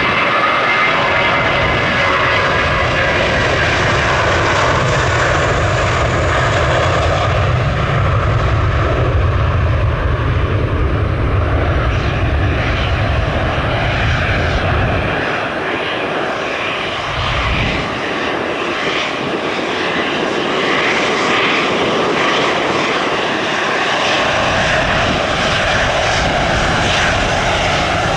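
Jet airliner engines running loud. A high whine fades over the first several seconds, and a deep rumble drops away about halfway through, then comes back more weakly near the end.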